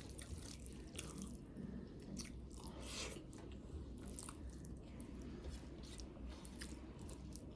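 A person chewing and biting a mouthful of kadi rice and papad close to the microphone, with irregular crisp crunches and wet mouth clicks.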